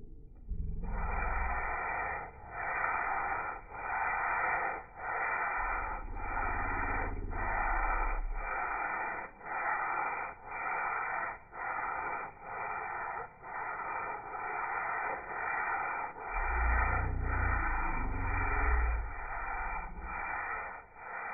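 Sandpaper rubbing back and forth by hand over a cured urethane coat on a wooden jewelry box, about two strokes a second, knocking down the raised grain between coats. A low rumble comes in twice.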